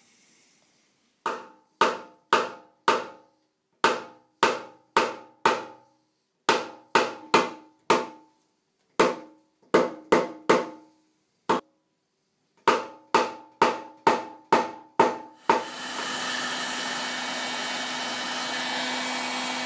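Dent-repair hammer tapping a knockdown tool against the sheet-steel Kawasaki motorcycle fuel tank, in runs of four to seven sharp taps about two a second, each ringing briefly off the tank: the crowns around a dent being knocked down. About 15 seconds in, the tapping stops and a steady hiss with a low hum takes over.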